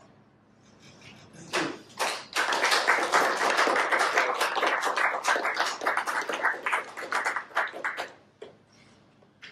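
A small audience clapping. The applause starts about a second and a half in, holds for several seconds and dies away near the end.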